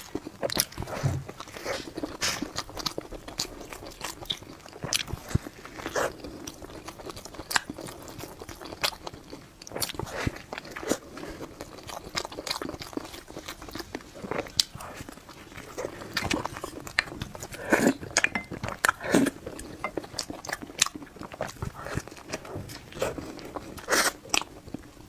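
Close-miked eating: a person biting and chewing food, with repeated crunches, clicks and wet mouth sounds.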